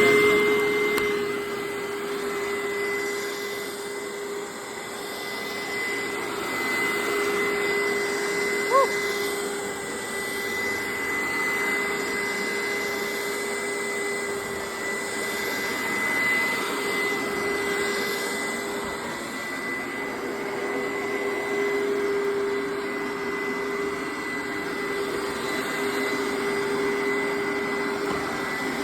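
Hoover SteamVac Dual V carpet cleaner's suction motor running steadily with a high, even whine as it sucks water up from wet carpet. There is one short, sharp blip about nine seconds in.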